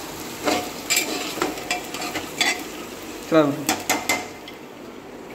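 A spoon stirring food inside a pressure cooker, scraping and clinking against the metal pot in uneven strokes over a low frying sizzle. A short falling squeal about three seconds in.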